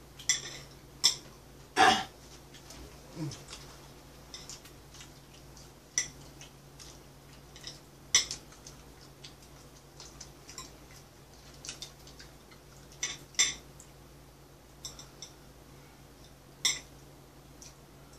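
Metal chopsticks and spoons clinking and scraping against plates and bowls, a string of irregular sharp clicks over a low steady hum.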